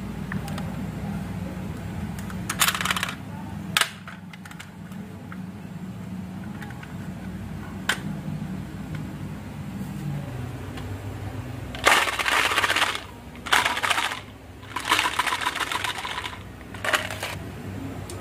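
Marbles rolling and clattering along a wooden marble-run track in several short rattling runs, with a couple of single sharp clicks between them.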